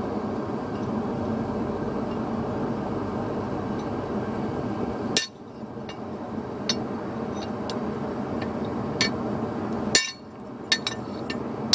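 Gas forge burner running with a steady roar, which drops away suddenly about five seconds in. After that come a series of sharp, irregular metallic clinks of a hammer striking steel on an anvil, as a piece of stock is cut off.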